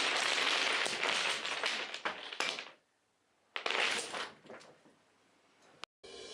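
A structure of wooden building blocks collapsing, with many blocks clattering and knocking against each other and the floor. The clatter stops abruptly a little under three seconds in; about half a second later a second burst of clattering starts and dies away over a second or so.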